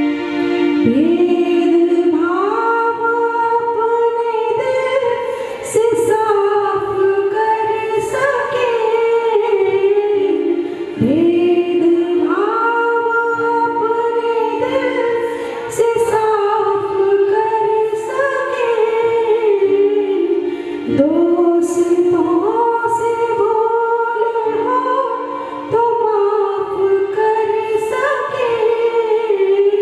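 Hindi devotional prayer song sung by a girl's voice over keyboard accompaniment, a slow melody of long held notes.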